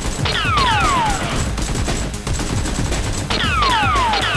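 Dubbed-in gunfire sound effects with bullet ricochets: falling whines, two just after the start and three more about three seconds in, over a steady low rumble.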